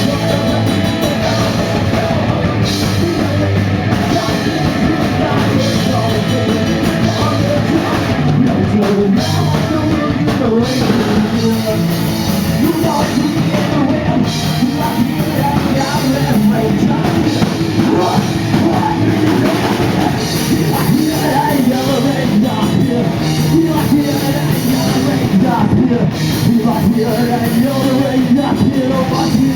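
Live rock band playing loud with electric guitars and drums, the song running on steadily without a break.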